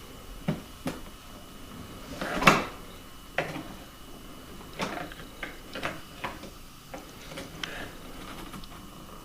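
Dishwasher racks and dishes being handled: a string of irregular knocks and clatters, the loudest and longest about two and a half seconds in.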